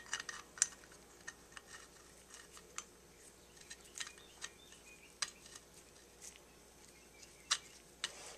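Faint, irregular small metal clicks and taps as Holley carburetor parts and hand tools are handled during reassembly of the float bowls, about a dozen scattered through.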